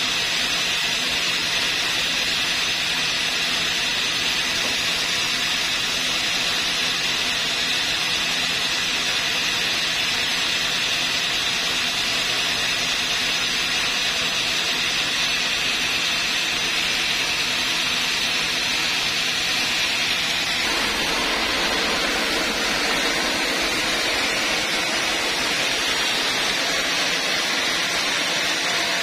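Large vertical band sawmill running with a steady hissing whir. About twenty seconds in the sound changes abruptly and fills out lower, as the blade cuts into an old teak log.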